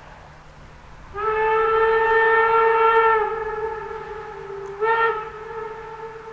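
Steam locomotive 50 3708-0's whistle: one long single-note blast starting about a second in, easing a little lower and softer after about two seconds, then a short sharp blast near the end before it fades.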